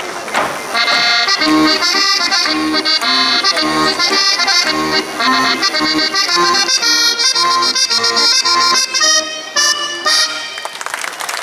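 Accordion playing a lively folk dance tune over a steady bass beat. The tune ends about ten and a half seconds in, and applause breaks out.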